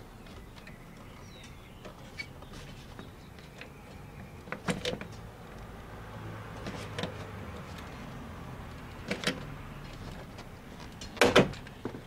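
Hand pop-rivet gun setting a short 1/8-inch rivet in the door handle bracket, with sharp metallic clacks about every two seconds as the handles are squeezed. The loudest snaps come near the end.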